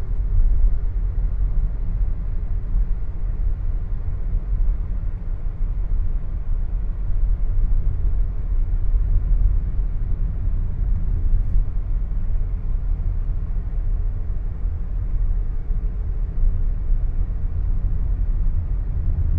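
Car driving along a road: a steady low rumble of road and wind noise.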